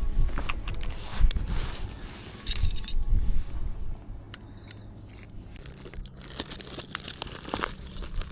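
Handling noise: rustling and crinkling with scattered sharp clicks and light clinks.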